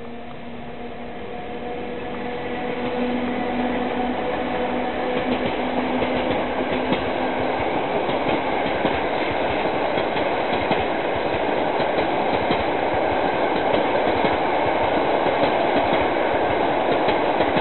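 PKP class ET22 electric locomotive and its passenger coaches passing at speed. A steady hum from the locomotive fades over the first several seconds while the rumble of the coaches grows louder, with the wheels clacking over the rails.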